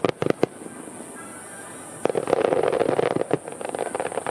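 Aerial fireworks: a few sharp bangs of shells bursting at the start, then, about two seconds in, a dense run of rapid crackling pops from many bursting stars.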